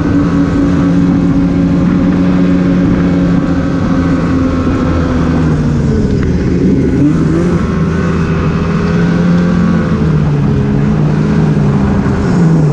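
Polaris Switchback Assault 850 snowmobile's two-stroke engine running loudly under way, heard from the rider's seat. Its pitch holds steady, dips and climbs again about six to seven seconds in as the throttle changes, then settles.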